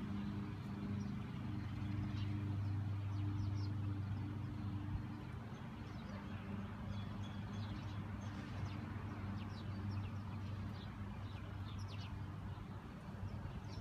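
Outdoor ambience: a steady low motor hum that fades out about halfway through, with faint, scattered bird chirps.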